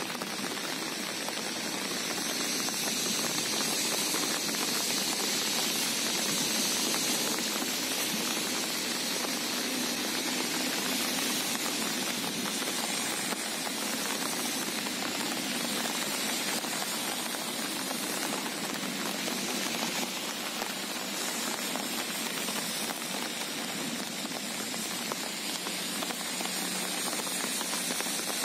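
Steady rain falling, an even hiss without a break.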